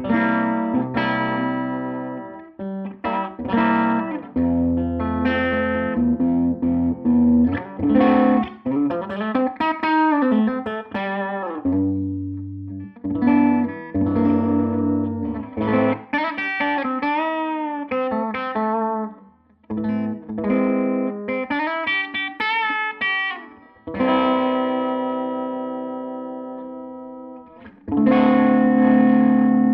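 Electric guitar played through a Tone King Gremlin amplifier's rhythm channel: chords and single-note lines with string bends. Three-quarters of the way through, a chord is left ringing and slowly fades, then a new chord is struck near the end.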